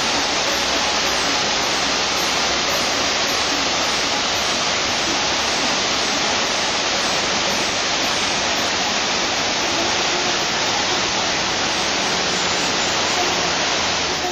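Waterfall cascading over rock tiers into a pool, a steady, even rush of water.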